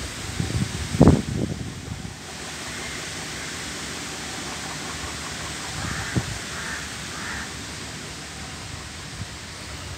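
Crows cawing a few times, faint against a steady outdoor hiss, with muffled thumps close to the microphone in the first two seconds.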